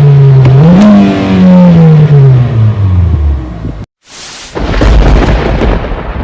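Loud thunder sound effects: a low pitched tone mixed with rumbling noise rises and then slides down over about three seconds, and after a short dropout a thunderclap, a sharp crack about four seconds in followed by a deep rumble that dies away.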